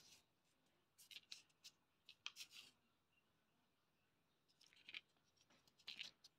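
Faint rustling and scraping of a paper checklist sheet being handled, in a few short bursts.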